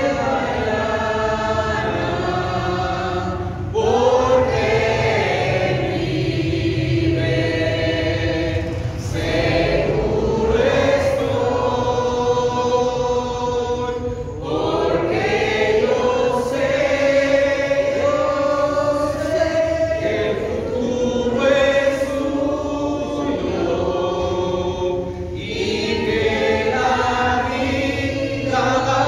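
A church congregation singing a hymn together, following a man's lead, in phrases of about five seconds with long held notes and short breaths between them.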